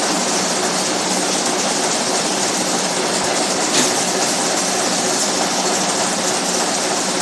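Wire nail making machines running: a steady, dense mechanical clatter, with one sharp click about four seconds in.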